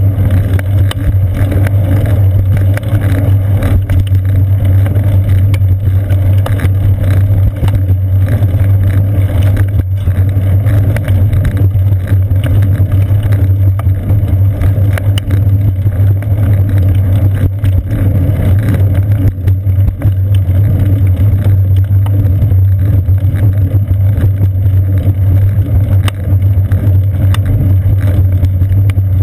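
Steady, loud rumble of a bicycle in motion, picked up by a seat-post-mounted GoPro Hero 2: tyre and road vibration carried up the frame, with wind on the camera housing and many small knocks from bumps in the path.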